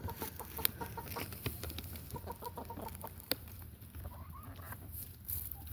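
Chickens clucking in short, low clucks, with scattered light ticks and taps mixed in.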